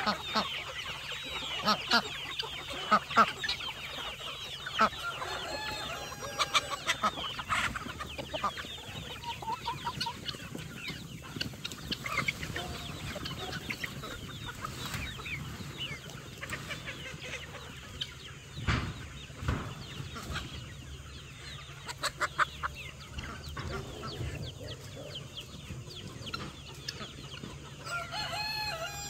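A flock of chickens clucking and calling over one another, busiest in the first several seconds, over a low steady hum.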